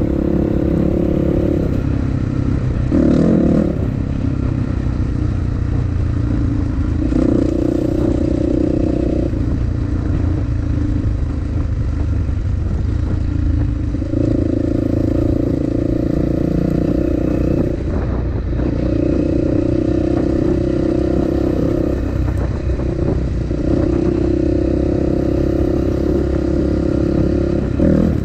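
Dirt bike engine running as the bike rides along a rough dirt track. Its pitch steps up and down with the throttle several times, holding each level for a few seconds, with a few brief knocks over the rough ground.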